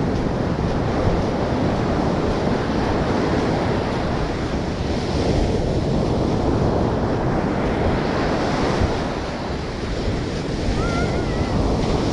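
Ocean surf breaking and washing up a sandy beach, the hiss swelling and easing every few seconds, with wind buffeting the microphone.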